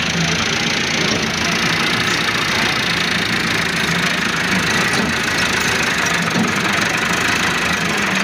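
A farm tractor's diesel engine running steadily at close range as the tractor pushes a loaded trolley up onto a low-bed trailer.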